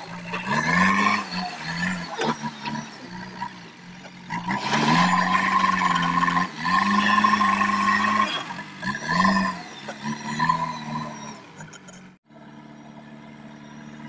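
JCB 3DX backhoe loader's four-cylinder diesel engine revving up and down and labouring as the front bucket is driven into a gravel pile, with a high whine from the hydraulics in the loudest, heaviest stretches. About 12 seconds in the sound breaks off and the engine runs on more steadily and quieter as the machine drives.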